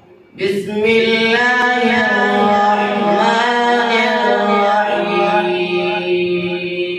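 A male qari reciting the Quran (tilawat) in a melodic chant. After a brief pause he starts about half a second in and holds one long, drawn-out phrase, its pitch rising and falling.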